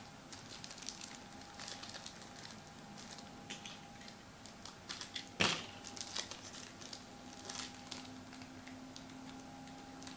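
Foil wrapper of a trading-card pack being crinkled and torn open by hand: faint scattered crackles, with one sharper rip about five seconds in.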